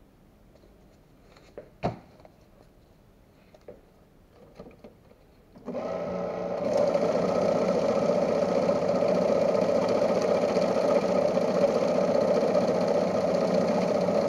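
Ribao BCS-150 banknote counting machine: a few handling clicks, a sharp one about two seconds in. About six seconds in the machine starts up and runs steadily, feeding a stack of notes through for counting.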